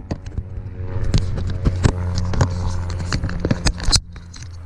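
Mountain bike rolling on tarmac, heard through its handlebar-mounted camera: irregular clicks and rattles from the bike over a steady low hum.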